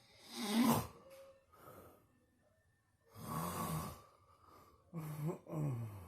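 Loud snoring: a series of snoring breaths, each under a second long, coming every second or two.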